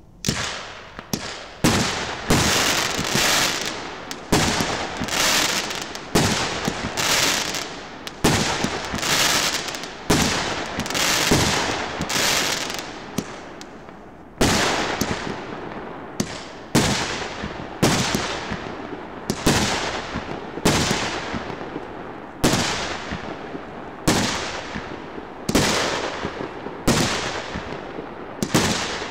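A 49-shot, 1.5-inch consumer fireworks cake firing a steady series of shots, about three every two seconds, each sharp report followed by a fading hiss. The firing pauses briefly about halfway through, then resumes at the same pace.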